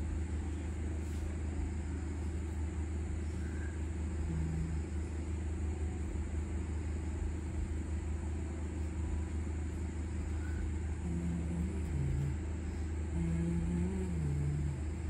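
Steady low background rumble with no change through the stretch, and a faint murmuring voice briefly near the end.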